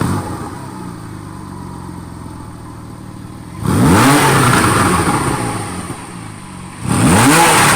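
Sports car engine idling, then revved hard twice, about three seconds apart, with the pitch climbing and falling back each time.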